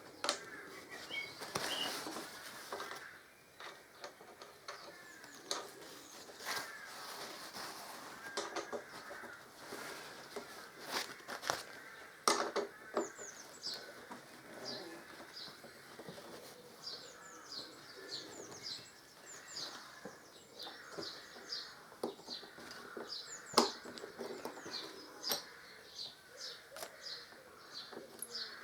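Scattered clicks and knocks of metal brackets, bolts and tools being handled while a windscreen is fitted, with sharper knocks about 12 and 23 seconds in. From about halfway, small birds chirp in quick series of short falling notes.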